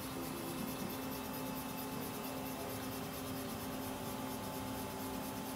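Brother TC-32BN-QT CNC drill and tap center running under power: a steady machine hum with a faint, fast high-pitched pulsing over it.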